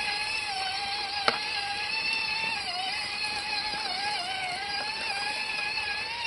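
Electric motor and gearbox of an MN99S 1/12-scale RC crawler whining steadily, the pitch dipping and recovering as the drivetrain takes load. One sharp click about a second in.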